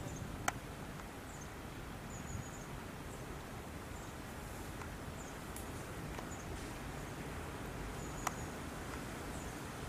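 Outdoor ambience: a steady low rushing noise with faint, short high-pitched chirps scattered through it. Two sharp clicks stand out, one about half a second in and one near the end.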